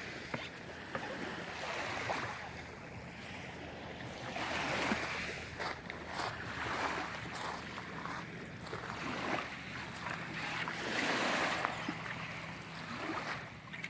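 Shallow water sloshing and lapping around a small shrink-wrapped skin-on-frame kayak as the paddler shifts his weight and pushes on the bottom with the paddle. The sound rises and falls every second or two, with a few faint clicks.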